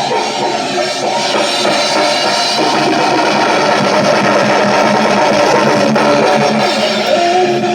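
Loud rock jam with distorted electric guitar and a drum kit playing continuously.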